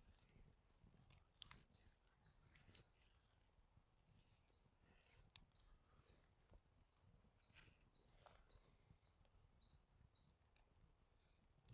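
Faint bird song: a small bird chirping a quick run of short, repeated high notes, over a low background rumble.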